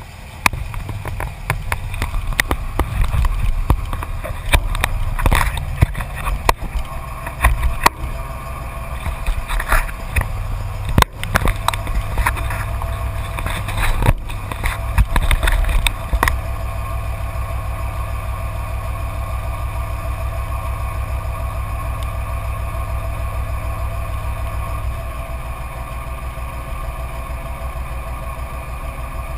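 Straight-piped Cummins turbo-diesel inline-six of a Dodge Ram 2500 with its muffler deleted, running loud and uneven for about the first sixteen seconds, then settling into a steady idle with an even, rapid pulse.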